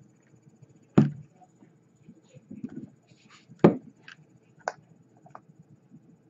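Hands working a coil into a rebuildable atomizer on a box mod: scattered small clicks and taps of metal parts, with two sharper knocks about a second in and past the middle.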